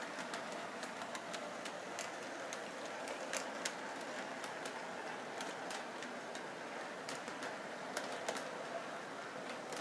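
Model train running on its track: a steady whir with light, irregular clicks.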